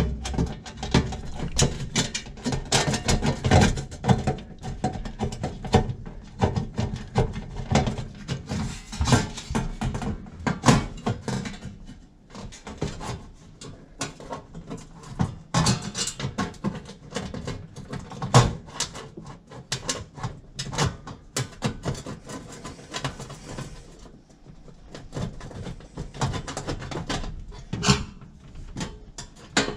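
Sheet-metal oven fan cover being handled and fitted back against the back wall of a fan oven: irregular metallic knocks, clicks and scrapes, dropping away for a few seconds near the end.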